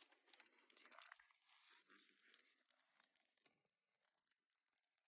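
Faint, irregular rustling and small clicks of hands handling a cable and a small plastic adapter.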